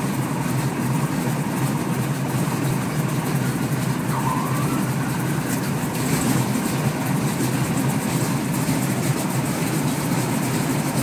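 1929 Ford Trimotor's 450 hp Pratt & Whitney Wasp nine-cylinder radial engine running steadily.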